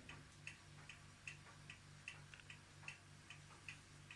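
Near silence with faint, quick ticking, about two or three ticks a second, over a low pulsing hum.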